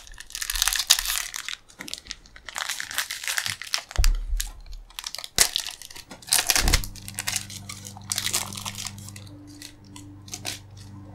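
Foil wrapper of a Topps baseball card pack crinkling and tearing as it is opened by hand, in a run of crackly bursts that die away about six and a half seconds in.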